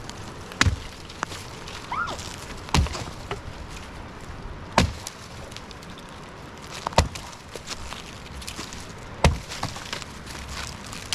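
Firewood being chopped: five heavy blows about two seconds apart.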